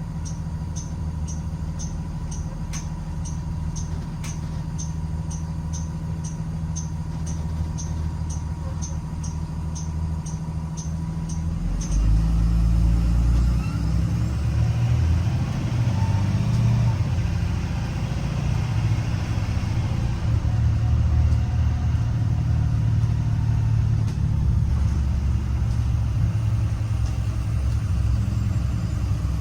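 Blue Bird Vision school bus engine idling, with a fast, even high ticking and a steady tone over it. About twelve seconds in, the ticking and the tone stop and the engine gets louder, its pitch rising and falling as the bus drives.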